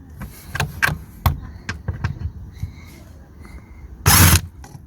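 Clicks and knocks of a tool undoing the T30 Torx bolts of a car's plastic underbody tray. About four seconds in comes one loud, short burst of noise lasting under half a second.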